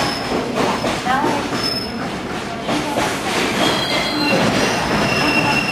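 Freight train of container wagons rolling slowly past, with a steady rumble of the cars. High-pitched wheel squeal rings out over it, strongest in the second half.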